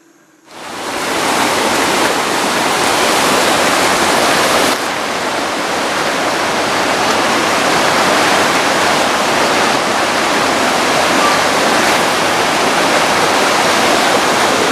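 Loud, steady rushing noise, like a hiss, fading in about half a second in and dropping a little in level near five seconds in.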